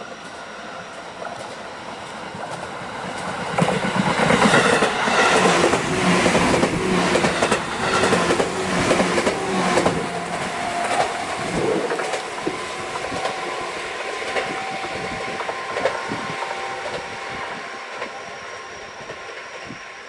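JR 211-series six-car electric train passing close by while accelerating, its motor cars' traction motors growling and its wheels clattering over the rail joints. The sound builds as it approaches, is loudest from about four to ten seconds in with a run of rhythmic knocks, then fades with a steady tone as the train pulls away.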